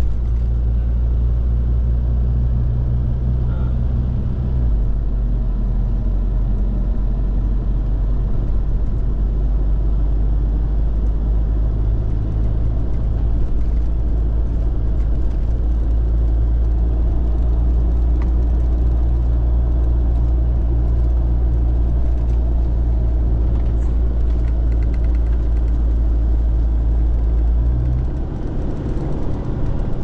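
4x4 vehicle driving: a steady low rumble of engine and road noise, shifting about four seconds in and easing off near the end.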